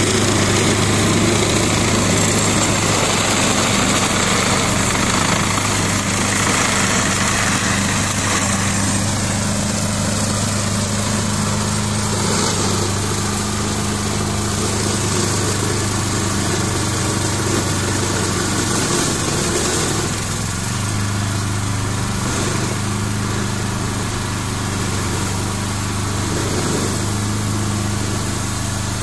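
Ferrari 95RS compact tractor's 40 hp Lombardini diesel engine running steadily while its rear-mounted Alfagri brush shredder cuts through tall cane and weeds. A high whine drops in pitch about nine seconds in, and the sound eases slightly toward the end as the tractor moves away.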